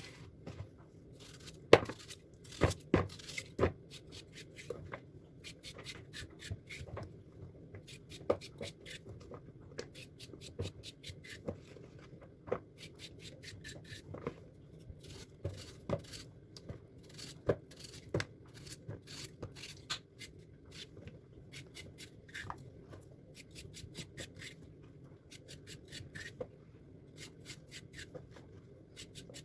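Close handling sounds of small objects: a dense, irregular run of light clicks, taps and scrapes, with a few louder knocks about two to four seconds in.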